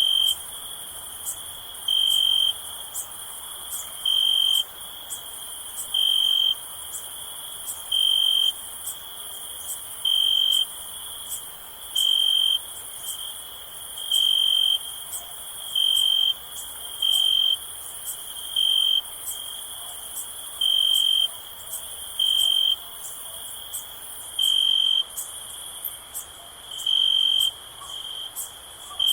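Crickets chirping at night: one near cricket trills loudly in pulses of about half a second, roughly every two seconds, over a steady high-pitched chorus of more distant insects.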